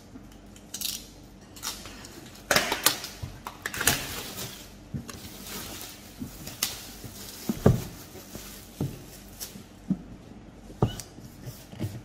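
Clear plastic shrink-wrap being cut, torn and peeled off a cardboard box, crackling and rustling in irregular bursts. In the second half come several short knocks as the box is handled and set down on a wooden table.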